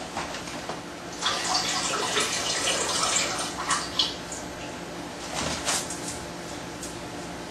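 Liquid splashing and trickling for about three seconds, then a second short splash a little later.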